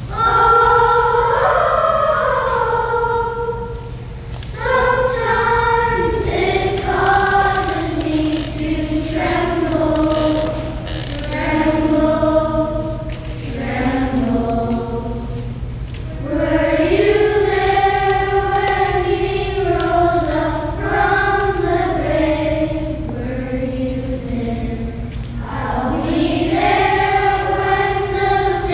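Children's choir singing a song together in phrases, with short breaks between them, over a steady low hum.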